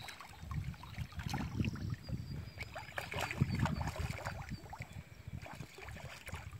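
Hooked fish thrashing at the water's surface, a run of irregular splashes, thickest from about one to four seconds in, over a low rumble of wind on the microphone.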